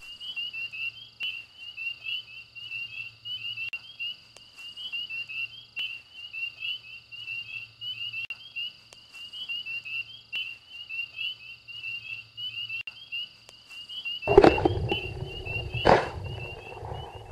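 A steady chorus of short, high chirping calls, about three a second, typical of small frogs or insects calling. Near the end a loud rumbling noise cuts in, with a sharp knock.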